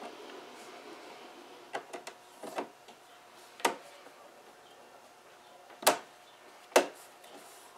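Round speaker grille pressed by hand into its chrome-ringed recess in a leather-covered Jaguar X-Type rear door panel: a run of short sharp clicks as it is pushed and seated, the two loudest near the end.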